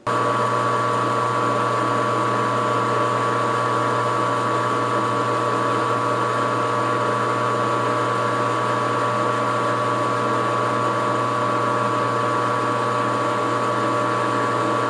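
Metal lathe running at a steady speed, a low hum with a few fixed tones, while a 5/16-36 tap in the tailstock chuck threads a brass rifle case held in the spinning chuck. The sound cuts in abruptly at the start.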